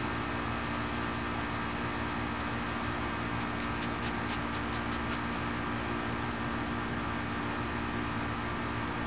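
Steady background hum and hiss, even in level throughout, with a short run of faint high clicks about halfway through.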